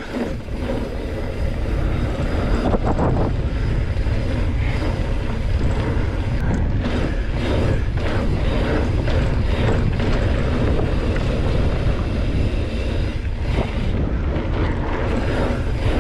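Wind buffeting the microphone over the rush of knobby tyres on dirt as a Trek Roscoe 9 hardtail mountain bike is ridden over jumps, with a few knocks and rattles from the bike on bumps and landings.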